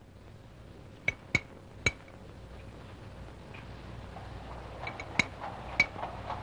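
Glass bottles and jars clinking as they are handled: sharp, ringing clinks, three within the first two seconds and three more near the end, over a faint hiss that slowly grows louder.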